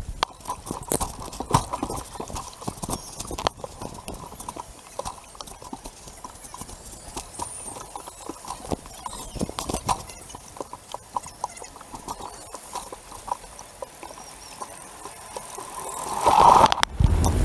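Poseidon water-coaster boat gliding along its water channel, knocking and clattering irregularly against the side guide rails with water slapping the hull. About sixteen seconds in, a louder rush and then a low rumble as the boat runs onto the lift hill.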